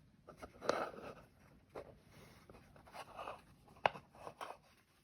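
Handling noise from coffee-grinder burrs being moved and set side by side: faint rustling with scattered light clicks and taps, the sharpest a little under four seconds in.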